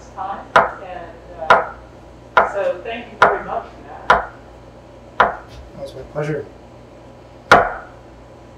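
A chef's knife slicing a rope of potato gnocchi dough into pieces, the blade knocking on a wooden board with each cut. There are seven or eight sharp knocks at an uneven pace of about one a second, and the loudest comes late.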